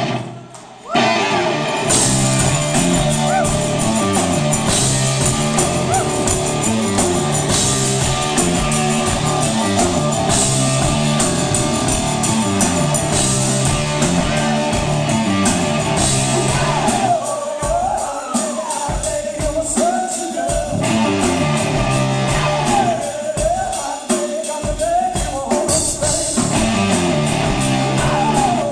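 A rock band playing live: a heavy, repeating electric guitar and bass riff with drums. It stops for a moment about a second in, then comes back in full. A singer comes in over it about halfway through.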